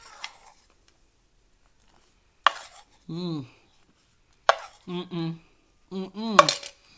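Someone biting and crunching microwaved cornstarch: three sharp crunches about two seconds apart, each followed by a short hummed "mm" whose pitch falls.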